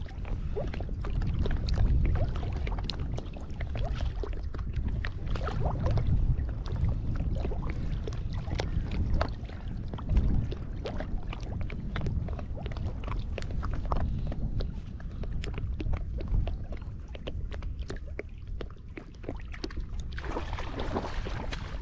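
Water lapping and splashing around a float tube, with many small splashes and ticks over a steady low rumble, and a louder splashing stretch near the end.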